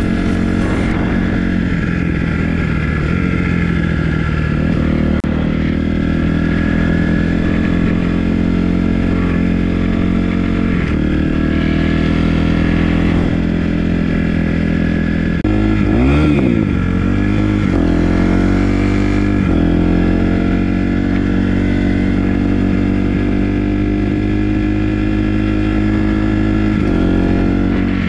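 Small dirt bike's engine running while being ridden, its pitch stepping up and down several times with throttle and gear changes, with a quick dip and rise of revs a little past halfway.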